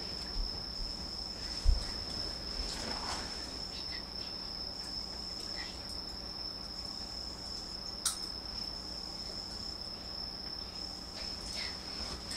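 A steady high-pitched trill or whine, like a cricket's, holds unbroken throughout. A low thump comes a little under two seconds in, and a sharp click about eight seconds in.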